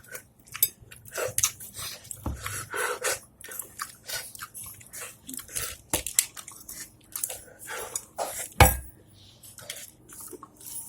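Plates and dishes clattering and clinking in a series of short knocks, with one heavier knock about eight and a half seconds in, mixed with crunchy chewing of candy-coated chocolate sweets.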